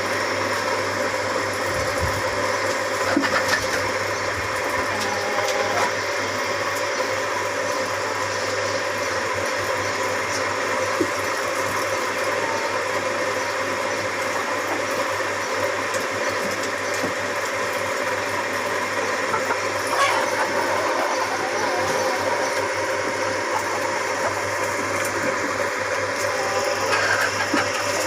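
A steady mechanical hum, like a small electric motor or fan running, with a few brief faint calls over it about two-thirds of the way in and near the end.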